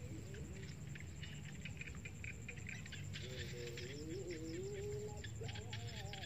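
Faint rustling and crackling of grass as a small monkey crawls and picks through it with her hands, in short ticks that thicken from about halfway on. Faint wavering calls rise and fall in the distance.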